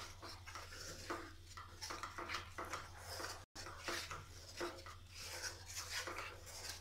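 Wooden spatula stirring and scraping a thick, sticky tamarind-and-jaggery paste around a nonstick pan, with faint rubbing strokes about twice a second. The strokes are broken by a momentary dropout about halfway.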